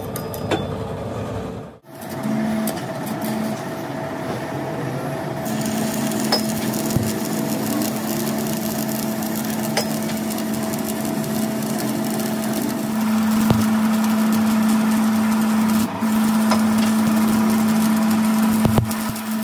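Stick (arc) welding on a crankshaft journal, building up the worn journal with weld metal: the arc sizzles steadily, with a steady hum under it. It breaks off briefly about two seconds in.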